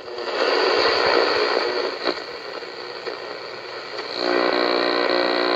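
1984 Sanyo clock radio's speaker hissing with static as the dial is tuned across the upper FM band. About four seconds in, a steady droning buzz comes in, with a faint tick about three times a second.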